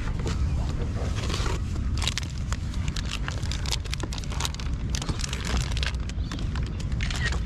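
Steady wind rumble on the microphone, with a run of small clicks and rustles as a caught mulloway is handled and a fish grip is clamped onto its jaw.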